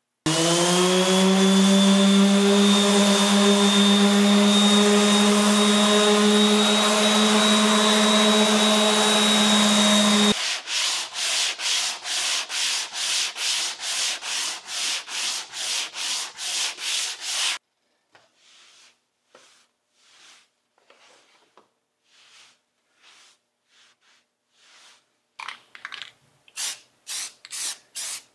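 An electric sander spins up, runs at a steady whine for about ten seconds, then cuts off. Hand-sanding strokes follow at two or three a second, going faint in the middle and loud again near the end. This is the sanding of cured body filler over the shaved emblem spot on a car's front bumper.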